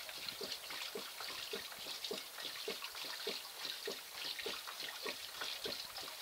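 Water poured from a pitcher over gravel in a small wooden sluice box, running off and splashing into a plastic tub below, with a quick, irregular patter of splashes over a steady rush. It is the sound of a till sample being washed through the sluice.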